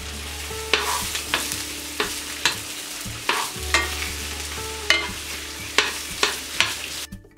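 Green asparagus sizzling as it fries in a nonstick pan, with a metal spoon clicking and scraping against the pan every half second to a second as the spears are turned. The frying cuts off near the end.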